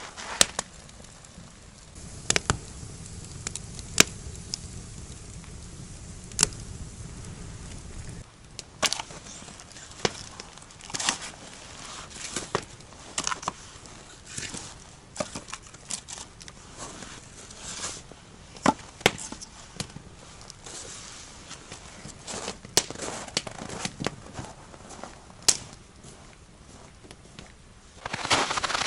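Irregular sharp wooden knocks and clacks from split firewood pieces being picked up and stacked against each other, with a campfire crackling in the first part. Crunching footsteps in snow start near the end.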